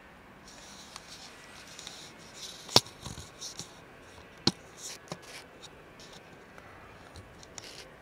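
A cat crunching dry kibble from a plastic tub: a run of small, crackly crunches, with two sharp clicks, one a little under three seconds in and one about four and a half seconds in.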